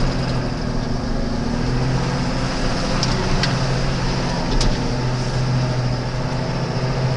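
Ford four-wheel-drive truck's engine running steadily while the truck drives through snow, heard from inside the cab. A few short clicks come in around the middle.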